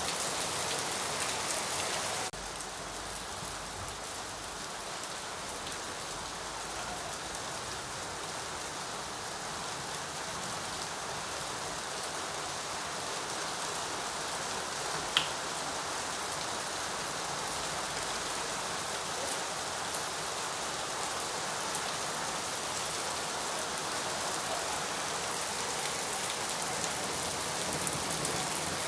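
Steady rain falling, an even dense patter of drops on a surface; the level dips slightly about two seconds in. A single sharp tick sounds about halfway through.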